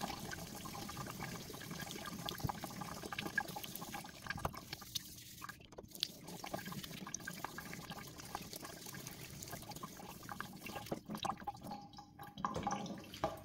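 A thin stream of tap water running into a stainless-steel sink, quiet, with faint rubbing and drips as a plastic display bezel is wet-sanded by hand with 1500-grit sandpaper.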